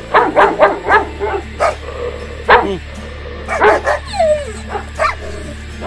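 German Shepherd dogs barking: a quick run of about four barks, then single barks and short clusters, with a falling whine about four seconds in.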